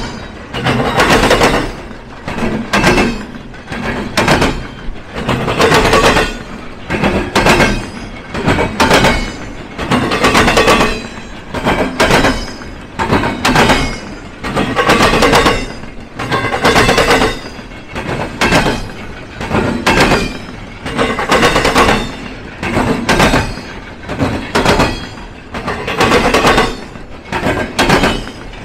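Freight train wheels banging across a railroad diamond crossing: a steady run of loud metallic bangs in clusters about every one to two seconds as car after car passes over the crossing frogs.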